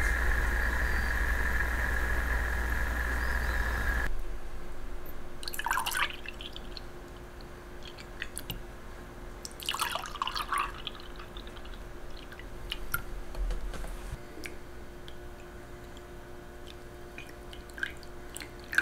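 Milk poured from a jug into two ceramic mugs, two short splashing pours about four seconds apart. A steady hiss before them cuts off about four seconds in. Near the end comes a thin trickle of coffee poured from the aluminium moka pot into a mug.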